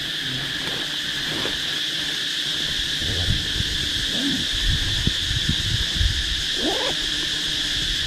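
Insects chirring in a steady, unbroken high drone, with scattered low bumps from about three seconds in and one short rising animal cry about seven seconds in.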